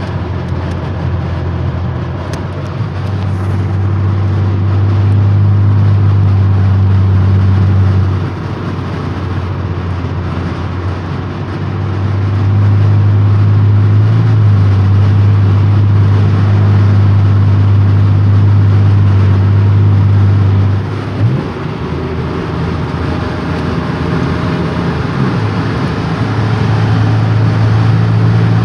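Chevrolet Impala's supercharged 3.8-litre L67 V6 droning at highway cruising speed, heard from inside the cabin over tyre and road noise. The low engine hum grows louder and fades back several times while its pitch stays about the same.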